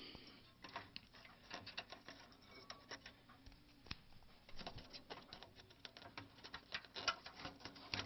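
Faint, irregular clicks and light taps of fingers handling an IDE hard drive's cables and connectors in a desktop computer's metal drive bay, several a second.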